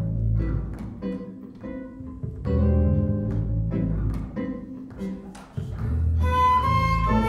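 A small ensemble of electric bass, electric guitars, violin and flute playing a slow piece: low bass notes under sustained chords, with a flute melody coming in about six seconds in.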